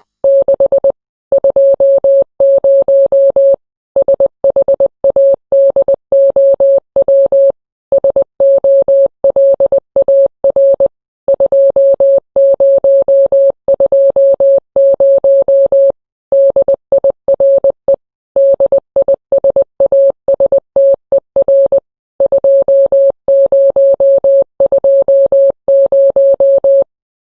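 A single-pitch electronic beep tone keyed on and off rapidly in short and longer pulses of uneven length, with brief silent gaps between runs, like a coded signal. It cuts off shortly before the end.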